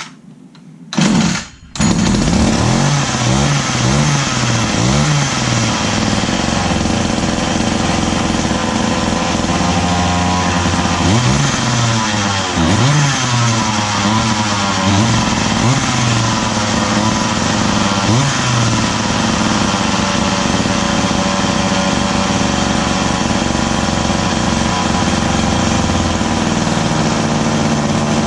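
McCulloch Mac 120 two-stroke chainsaw engine starting: a short burst about a second in, then it catches and keeps running, revved up and back down several times.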